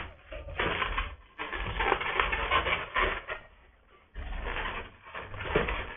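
Latex modelling balloon being handled and twisted into segments, with rubbery rubbing and crackling of the inflated balloon in several spells and a short pause a little after three and a half seconds.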